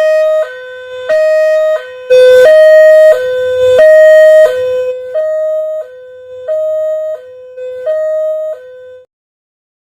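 Indonesian railway level-crossing siren sounding a two-tone electronic alternation, a lower and a higher note swapping about every two-thirds of a second. It is loudest through the middle and cuts off suddenly near the end.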